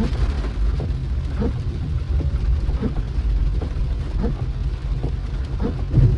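Car driving in rain: a steady low road rumble under an even hiss of rain, with faint short knocks about every second and a half.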